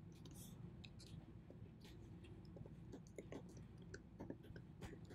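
Faint, irregular clicking of computer keyboard keys as a password is typed, over a low steady hum.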